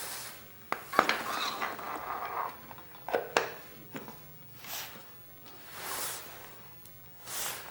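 Metal tools and parts clinking and knocking a few times, with three short bursts of hiss in the second half.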